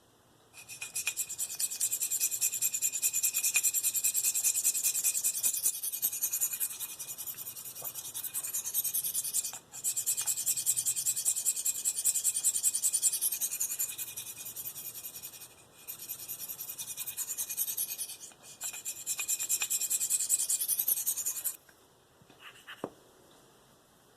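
Steel knife edge (Spyderco Endura, V-Toku2 blade) scraping in strokes across a Spyderco medium ceramic sharpening stone: a high, gritty rasp with a few short pauses, stopping shortly before the end.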